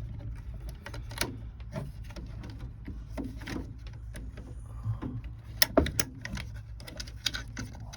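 Scattered clicks and knocks of a door latch and lock actuator assembly being pulled out of a van door, with the sharpest cluster about six seconds in, over a steady low hum.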